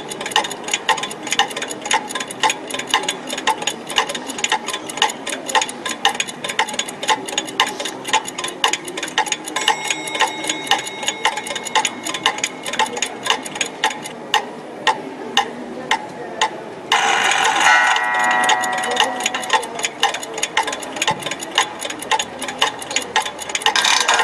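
Alarm clock ticking in an even, rapid rhythm; about seventeen seconds in a louder ringing with several steady pitches starts up over the ticking: the alarm going off.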